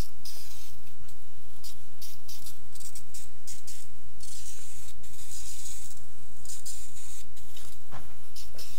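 Aerosol can of chemical paint stripper spraying onto a steel grille in a run of hissing bursts, several short ones and one longer spray about four to six seconds in.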